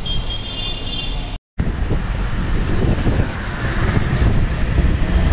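City road traffic heard from a moving motorbike: scooter and car engines running, with tyre and road noise. After a brief dropout about a second and a half in, it rises a little in level.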